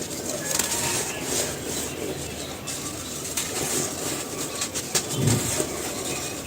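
Pieces of cement crumbling and crunching: continuous fine crackling, with one dull thud about five seconds in.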